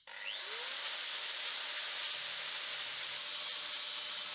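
A motor-driven machine starting up with a quick rising whine, then running steadily with an even airy hiss.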